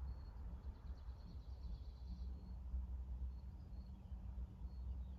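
Faint steady hum that starts about two seconds in, from the Yaesu ATAS-120A motorized antenna's DC motor driving the antenna up while it is being tuned. It sits over a low rumble and some faint high chirping.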